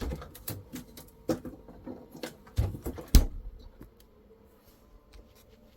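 Irregular clicks, taps and knocks for about four seconds, the loudest a thump about three seconds in, then a faint steady hum.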